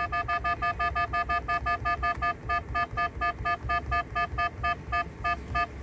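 Touchscreen key-tone beeps from a QCY V20 Pro mirror dashcam: one short electronic beep for each step as the minutes value is scrolled, about six beeps a second, spacing out a little near the end.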